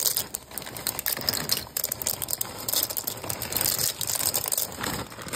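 Uncooked dry pasta rattling and clicking as it is shaken out of its plastic bag and scattered into the slow cooker.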